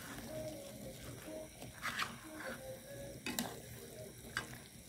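Plastic spoon stirring diced potatoes and tomatoes in an aluminium pot over a low sizzle, with a few sharp knocks or scrapes of the spoon against the pot.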